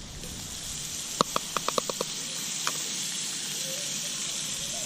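Campfire hissing steadily, with a quick run of about six sharp crackles about a second in and one more shortly after.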